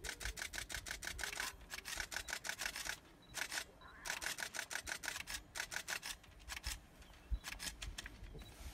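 Camera shutters firing in continuous burst mode: runs of rapid clicks at about eight a second, in several bursts with short gaps between them.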